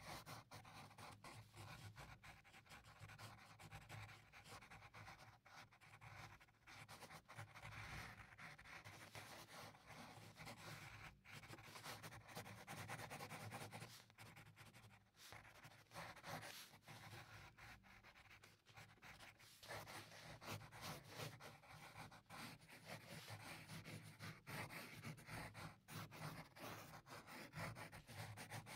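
Pencil drawing on paper: a faint, continuous run of short scratching strokes, with a few brief pauses between passages.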